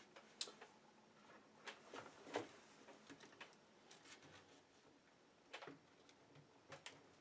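Scattered faint clicks and knocks of the plastic electronic brake control module housing being handled and pressed down onto the ABS hydraulic unit, a tight fit; the loudest knock comes about two and a half seconds in.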